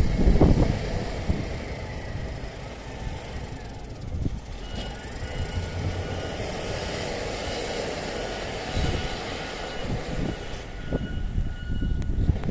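Blizzard wind gusting hard over the microphone: heavy low rumbling buffets near the start and again near the end, over a steady hiss of wind-driven snow. A faint, steady high whine runs along from about four seconds in.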